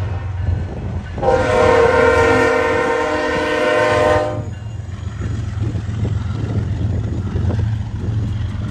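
BNSF diesel freight locomotive's air horn sounding one long blast of about three seconds, a chord of several notes, as the train reaches a grade crossing, a warning to road traffic. Under it and after it the locomotives' diesel engines rumble low as they pass.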